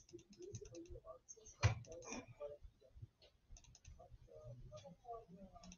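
Faint computer keyboard typing and clicking in quick runs of keystrokes, with one sharper, louder click or knock a little under two seconds in and low murmured voices underneath.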